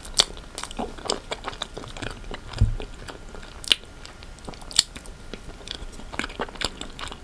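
Close-miked chewing of a mouthful of red velvet cake, with many short mouth clicks throughout and a dull low thump about two and a half seconds in.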